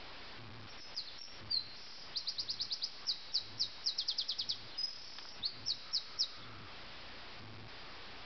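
Common nightingale singing a phrase of rapidly repeated high notes that slows into a few separate, spaced notes, over a steady hiss.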